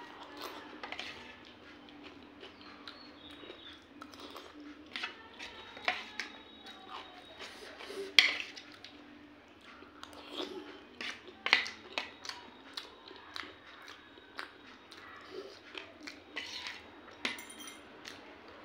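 Steel spoon clinking and scraping against a steel bowl of wet pea chaat, in scattered sharp clicks with the sounds of eating between them. The loudest clinks come about 8 and 11.5 seconds in.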